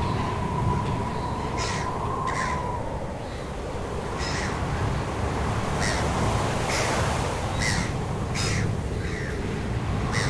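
Short, noisy bird calls repeated every second or so over a steady rushing background of wind or surf.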